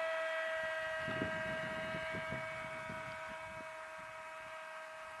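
Radio-controlled model airplane's motor and propeller droning at a steady pitch overhead, slowly fading, with a resonance that the pilot suspects comes from the plane's parachute trap door. Some low fluttering noise comes through from about a second in to past the middle.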